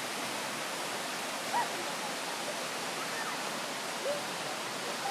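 Steady rushing of river water. Faint distant voices break through briefly about one and a half and four seconds in.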